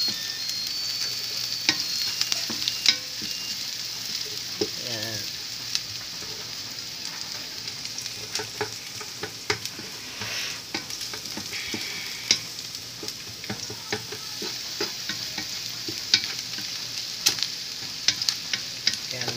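Chopped vegetables sautéing in hot oil in a pan, a steady sizzle. Irregular sharp clicks come from a utensil stirring against the pan.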